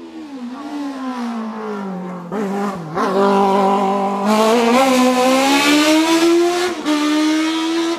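Single-seater formula race car's engine coming down through the gears with quick throttle blips about two to three seconds in, then revving hard in rising pitch as it accelerates away, with a gear change near the end.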